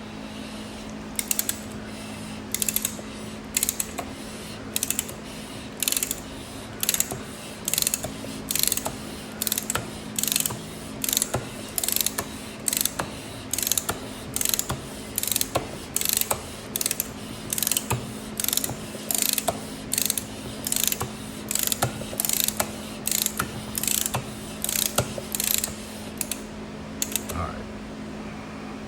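Ratchet wrench clicking in short, even strokes, about one and a half a second, as a Harley-Davidson Twin Cam engine is turned over by hand with its new pistons and cylinders fitted, to check that it spins freely. A steady low hum runs underneath.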